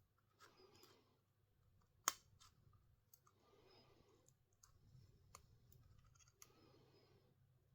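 Faint clicks and soft scraping of small hand tools working on a smartphone's internals, with one sharp click about two seconds in.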